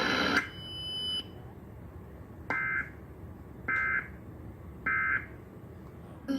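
A loud noisy sound cuts off about half a second in. Then come three short warbling data bursts, evenly spaced, from an Emergency Alert System encoder: the End of Message code that closes the test alert.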